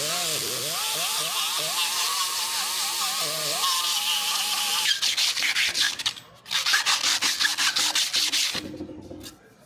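A grinding wheel runs against a progressing cavity pump's rotor head to clean it up, its pitch dipping and recovering again and again as it is pressed on. About five seconds in this gives way to quick back-and-forth rubbing strokes of sandpaper on the rotor head, with a short pause partway through.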